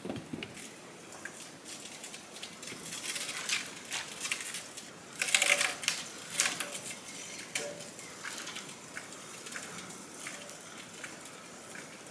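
Zip line rope and pulley running out as a load of lumber is let go down the line: a stream of irregular clicks and rattles, loudest about five to six and a half seconds in.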